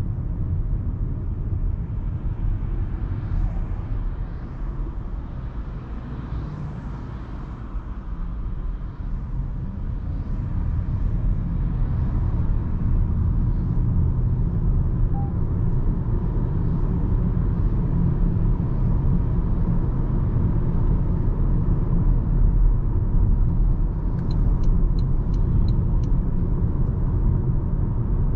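Toyota Camry XV80 2.5 hybrid on the move, with a steady low road and drive rumble. The rumble eases a few seconds in and builds again from about ten seconds. Near the end there is a short run of about six faint high ticks.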